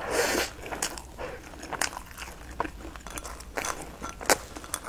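Close-miked chewing of crusty fried bread: a loud crunchy rush at the very start, then irregular soft crunches, clicks and wet mouth smacks.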